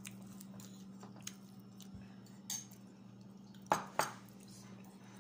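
Metal spoon clinking twice against a bowl a little over halfway through, with faint small taps and scrapes of cutlery before it and a steady low hum underneath.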